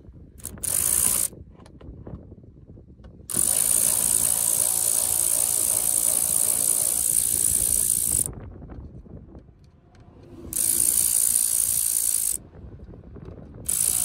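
Power ratchet with a T15 Torx bit backing out sun visor screws. It runs in separate bursts of high-pitched whirring: a short one near the start, a long one of about five seconds, and two more of about two seconds each, the last starting near the end.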